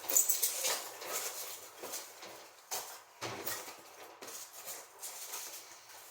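Plastic packaging being handled and pulled off a boxed model car: irregular crinkling rustles and small clicks, with a few sharper snaps.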